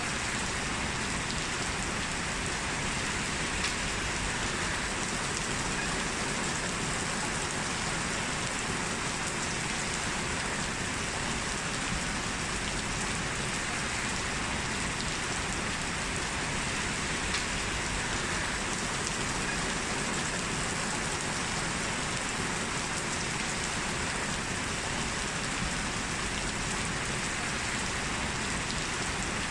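Heavy rain falling steadily, an even hiss of drops with no letup.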